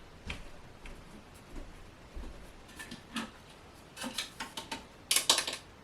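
Small objects being handled and set down: scattered light knocks and clicks, then a louder run of clattering and rustling near the end.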